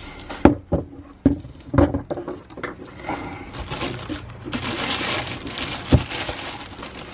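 Clear plastic packaging bag crinkling and rustling as the wrapped pressure washer is handled in its cardboard box. There are several sharp knocks in the first two seconds, the crinkling grows denser from about three seconds in, and there is a thump near six seconds.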